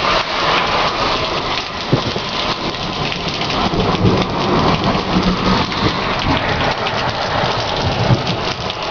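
Heavy thunderstorm rain pouring steadily, with thunder rolling as a low rumble through the middle and latter part.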